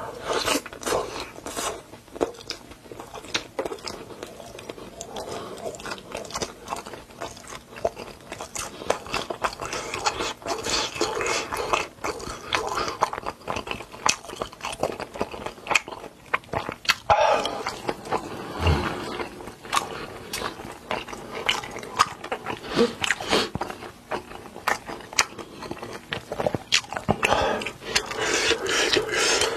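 Close-miked eating sounds: a person taking crunchy bites and chewing, a dense run of irregular crackles and smacks.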